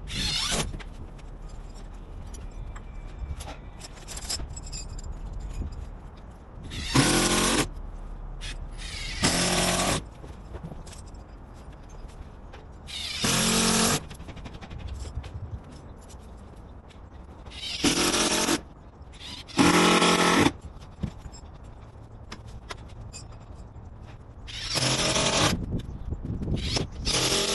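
Cordless power drill driving screws through round fastener plates into a roof deck, running in short bursts of about a second each with a motor whine, about seven times, several seconds apart.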